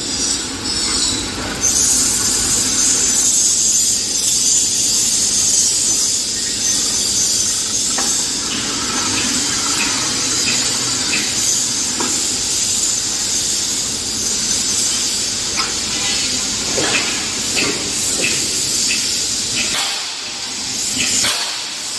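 QTJ4-25D concrete hollow block making machine running: a loud steady hiss that starts about two seconds in, with scattered metal clanks and knocks.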